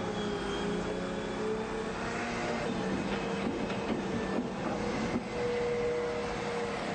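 Excavator digging: its diesel engine runs steadily under load, with tones from the engine and hydraulics shifting in pitch now and then as the arm works.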